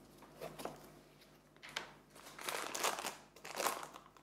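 Foil pouch of matcha crinkling as it is drawn up out of its tin, in several short rustles, the loudest a little under three seconds in.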